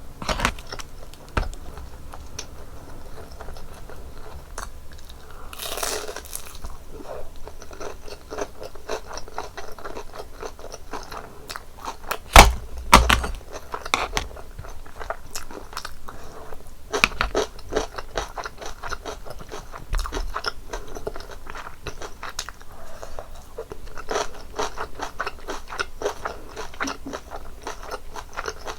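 Close-miked chewing and biting of crispy breaded, deep-fried cheese pork cutlet: a dense run of crackly crunches, with the loudest bite, carrying a dull thud, about twelve seconds in.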